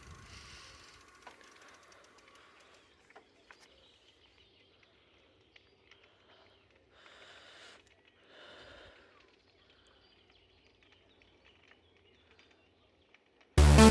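Faint outdoor background with a few soft clicks and two brief soft rushes of noise, then loud electronic dance music cuts in abruptly near the end.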